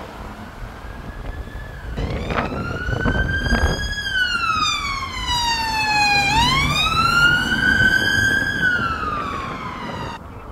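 Emergency vehicle siren in a slow wail, growing loud about two seconds in, gliding up, down, up and down again over several seconds, then cutting off suddenly near the end, over a low rumble of traffic.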